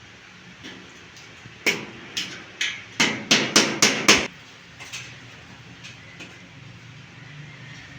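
A hammer striking a bed base during its repair: about eight sharp blows, coming quicker, from a couple of seconds in to about four seconds, then a few light knocks.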